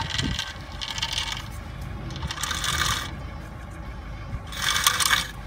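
Four short bursts of metal scraping and grating at the brake disc and back plate, each about half a second to a second long.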